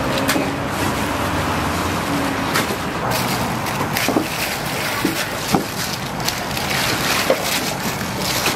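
Plastic bags crinkling and bamboo skewers clicking against a stainless-steel tray as marinated whole chickens are unbagged and laid out, with scattered sharp ticks over a steady background of traffic hum.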